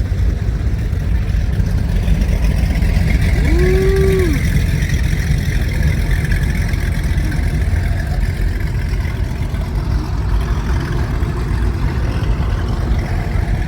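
Deep, steady rumble of high-performance powerboat engines running at low speed close by. A short rising-and-falling tone sounds once, about four seconds in.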